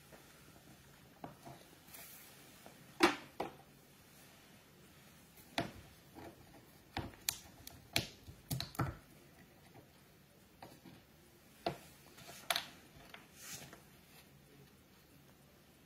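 Irregular clicks and taps of small objects handled on a hobby desk: paint pots and brushes picked up and set down. The loudest knock comes about 3 s in, and a quick cluster of clicks follows a few seconds later.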